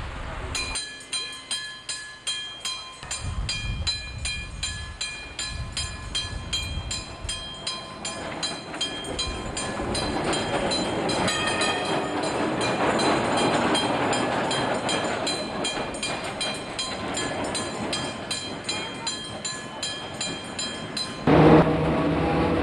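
Vintage electric tram pulling away, with a rapid, evenly repeated ringing throughout and the tram's running noise building up midway. Near the end it gives way abruptly to the louder, steady sound of a tram heard from inside.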